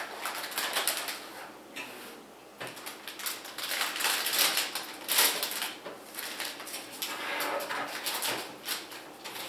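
Irregular rustling with light clicks and clatter of hard parts and packaging being handled, in uneven bursts.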